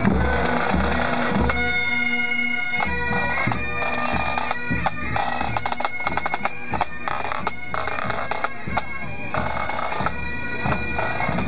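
Bagpipes playing a tune, the held notes sounding over a steady drone, with sharp drum-like beats mixed in.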